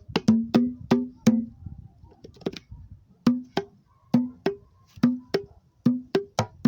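Hand drumming on homemade wooden cajón-style box drums built to serve as a conga or batá set, striking a low tone and a higher tone in a rhythmic pattern. The playing thins out about two seconds in and resumes with a sparser beat.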